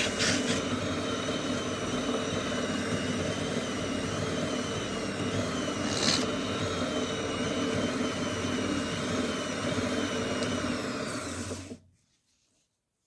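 Wood lathe running, turning a small wooden chair foot: a steady motor sound with wavering high tones, and two brief sharp scrapes, one right at the start and one about six seconds in. It cuts off abruptly about twelve seconds in.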